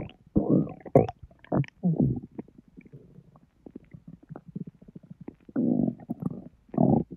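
Bowel sounds from a bloated, distended belly: irregular gurgles and rumbles as the intestines work through a large junk-food meal. They ease off in the middle and return with louder gurgles near the end.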